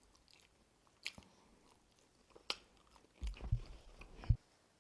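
Close-up mouth sounds of someone chewing and biting food, with a few sharp clicks and, in the last second and a half, a run of dull low knocks.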